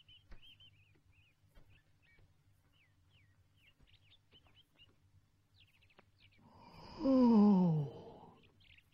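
Cartoon St. Bernard yawning: one long, loud yawn falling in pitch for about a second near the end. Faint birds chirp throughout.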